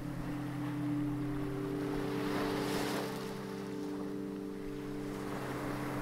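Gentle sea waves washing onto a shore, swelling in and easing off about halfway through, over a soft sustained chord of background music.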